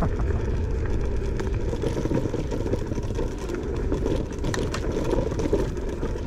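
Langfeite L8S electric scooter ridden over a rough off-road trail: a steady, uneven rumble of tyres, frame and wind, with a few sharp rattles, once about two seconds in and twice around four and a half seconds.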